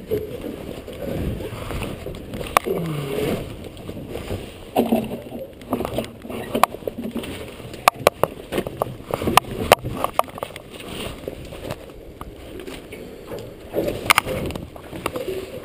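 Scattered sharp knocks and clatter from work aboard a small fishing skiff, with water sloshing at the hull and faint voices, all muffled by a waterproof camera case.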